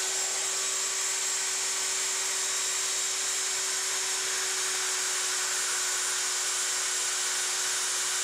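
Handheld belt sander clamped upside down in a vise, running at a steady speed with a steady hum and a high whine, while a plastic wingtip adaptor is held against the belt to shape its edge.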